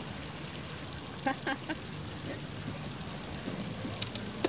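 Steady outdoor background noise, with a few short distant calls about a second in. Near the end comes a run of light clicks from a spinning fishing reel being handled.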